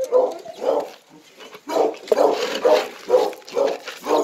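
Kenneled bear hounds barking repeatedly at feeding time. There are a couple of barks at first and a short lull about a second in, then steady barking at about two barks a second.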